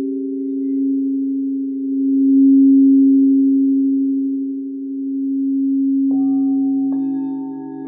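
Singing bowls ringing in long, pure, sustained tones that swell and fade slowly. About six seconds in another bowl sounds, adding a deeper tone and a higher one. Under a second later a third tone enters higher still.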